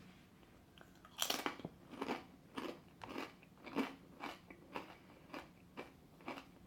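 Someone biting into a crunchy Estrella pizza-flavoured potato chip and chewing it: one loud crunch about a second in, then a steady run of crunches about twice a second.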